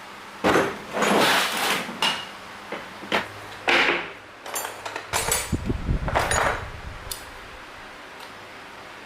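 Metal tools and parts clattering and knocking as they are handled, with several sharp knocks and scrapes and a low rumbling stretch about five seconds in, then settling quieter near the end.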